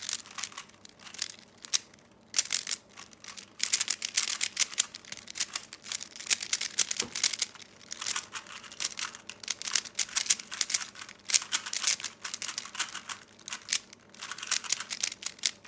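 Speedcubes (Rubik's cubes) being turned fast during a timed solve: a dense, rapid run of plastic clicking and clattering from the layers, with a brief lull about two seconds in.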